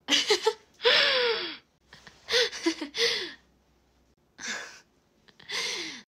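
A young woman laughing in short, breathy bursts and gasps, the pitch falling within each burst, with brief pauses between them.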